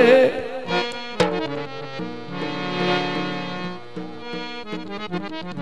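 Instrumental interlude of Punjabi folk music: a harmonium playing a melody of held notes that change every second or so, just after the singer's held note ends. A single sharp knock about a second in.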